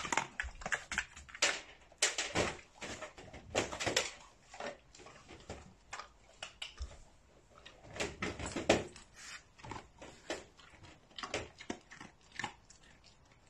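A dog moving about inside a wire crate: an irregular run of sharp clicks and knocks from its paws and claws on the crate floor, with a few denser clusters of knocks and soft shuffling on the blanket.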